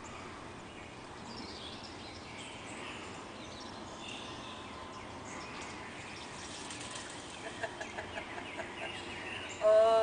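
Faint rustling of a white peacock's fanned train feathers as it shakes them in display, over a steady background hiss. Near the end come a run of quick faint ticks and then a short, loud pitched call.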